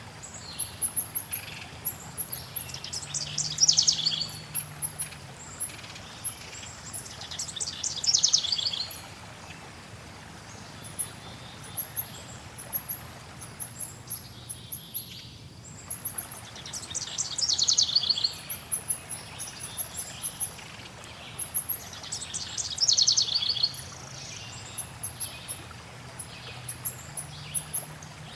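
Several songbirds singing over a steady hiss of flowing water. A loud trilled song comes four times, a few seconds apart, with thin high chirps in between.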